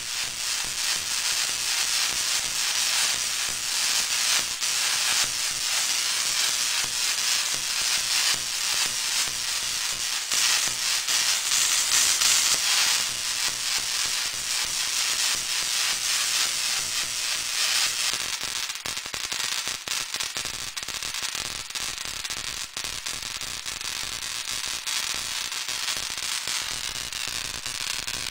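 Kinraide pancake Tesla coil firing a continuous spark between its two brass ball terminals: a steady hissing crackle, loudest about ten to thirteen seconds in and a little quieter after about eighteen seconds.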